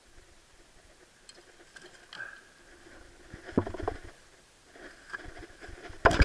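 Faint clicks, rustles and small knocks of fishing tackle being handled in the bottom of a small boat, with a sharper knock a little past halfway. A sudden loud burst of noise starts just before the end.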